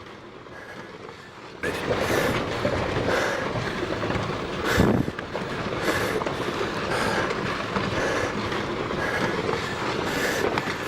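Rockfall on a volcano slope: a continuous rumbling clatter of tumbling rocks that starts suddenly about a second and a half in, swelling and easing about once a second.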